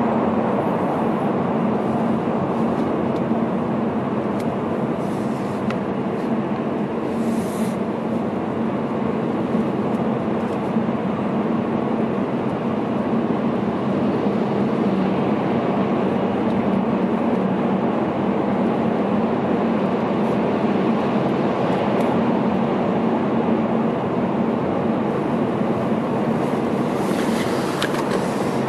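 Steady road and engine noise inside a car's cabin while driving through a road tunnel, with a low, even hum underneath. A brief rustle comes near the end.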